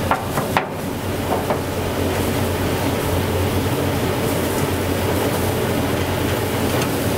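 A steady low mechanical hum and rumble, with a few light knocks and clicks in the first second and a half as bundles of sausages are hung on an overhead rail.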